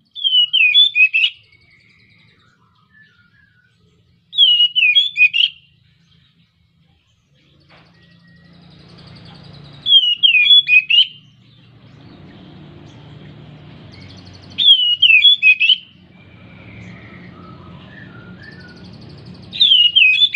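Oriental magpie-robin (kacer) singing the same short phrase of quickly swooping whistled notes five times, about once every five seconds: the full, repeated song of a bird in breeding condition (birahi).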